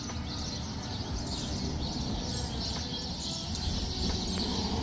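Many small birds chirping and twittering together, a dense overlapping chorus of short calls, over a low steady rumble.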